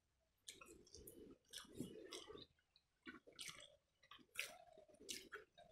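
Soft eating sounds of someone eating pakhala (watery rice) by hand: irregular chewing and small wet smacks and clicks as the fingers work the rice.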